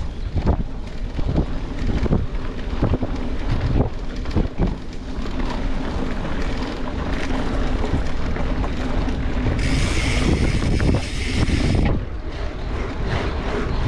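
Wind buffeting the microphone of a camera riding along on a mountain bike, over a low rumble with frequent small knocks and rattles from the bike on the trail. A brighter high hiss comes in for about two seconds near the end.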